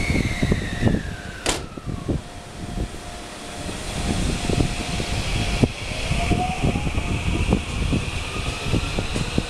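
JR West 223 series 2000-subseries electric train pulling out of the station and accelerating: its traction motors whine, rising in pitch as it picks up speed, over the rumble of the wheels. There is a sharp click about a second and a half in.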